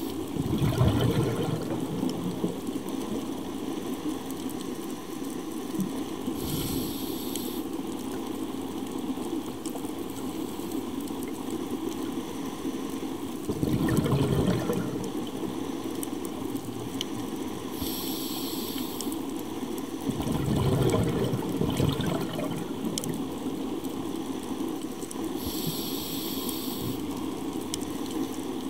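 Scuba diver breathing through a regulator underwater: a short hiss of inhalation through the demand valve about every ten seconds, alternating with rushing bursts of exhaled bubbles, over a steady underwater hiss.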